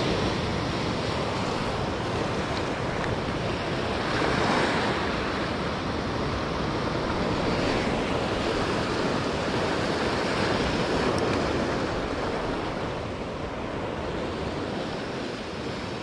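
Ocean surf surging and breaking against a rocky shoreline, a steady wash of noise that swells louder several times as waves come in.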